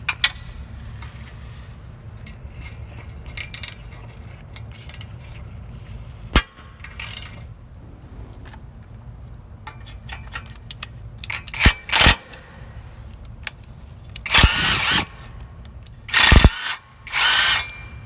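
A power tool with a 13mm socket undoing bolts in several short bursts, mostly in the second half, with light metal clicks between.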